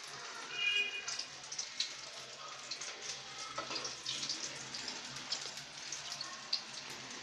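Bread-potato cutlets sizzling in hot oil as they deep-fry in a kadhai, with a steady crackle of small pops and spits. A brief high squeak comes about a second in.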